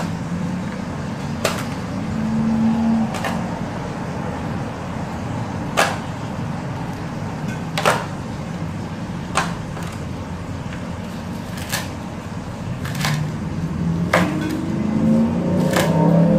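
Kitchen knife chopping fried pork on a cutting board: sharp single knocks of the blade hitting the board, irregular, about one every second or two, over a steady low hum.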